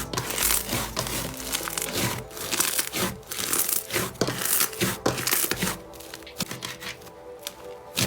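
Slime being pressed and squeezed by hand, giving a run of short crackles, dense at first and sparser in the last couple of seconds, over background music.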